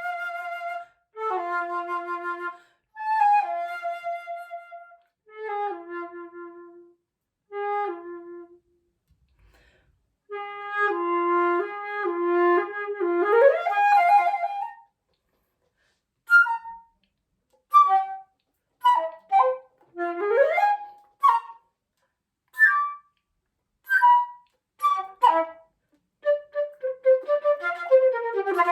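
Solo flute playing: phrases of held notes broken by short pauses, a fast run that sweeps upward about thirteen seconds in, then short, sharply attacked notes with gaps between them and another quick upward sweep, and a busy, continuous passage starting near the end.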